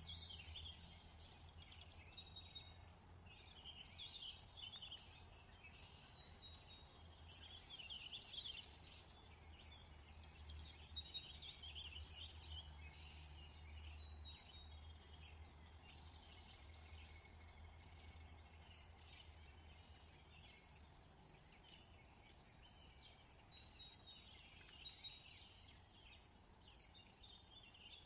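Faint chorus of small birds chirping and twittering, many short calls scattered throughout, over a low steady hum.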